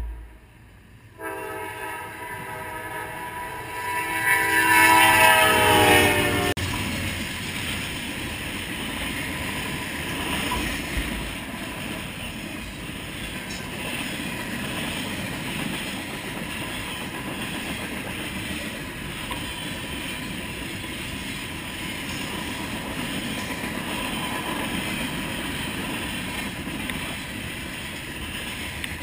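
Norfolk Southern freight train's diesel locomotive horn blowing at a grade crossing. The horn is loudest about five seconds in, its pitch drops slightly as the locomotive passes, and it stops abruptly. After that comes a steady rumble of freight cars rolling past, muffled by a waterproof camera case.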